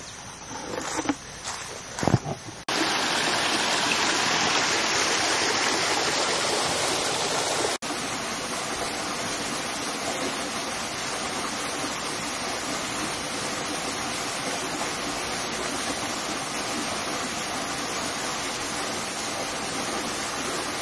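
A few soft bumps, then the steady rushing of a waterfall cuts in suddenly a little over two seconds in: an even wash of falling water.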